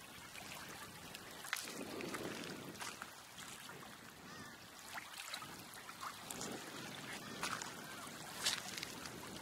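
Small waves washing up on the shore, rising and falling every second or two, with a faint short bird call about four seconds in.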